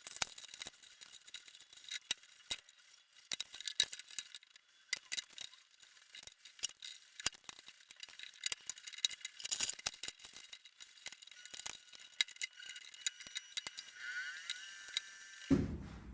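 Irregular light clicks and taps of hand-tool work on small wooden pieces, thin-sounding with no low end.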